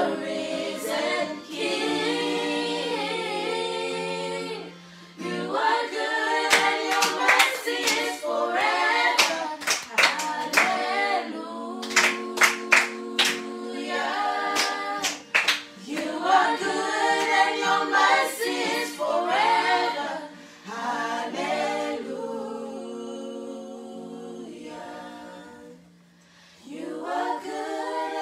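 A small group of voices singing a praise and worship song unaccompanied, with sharp hand claps through the middle stretch.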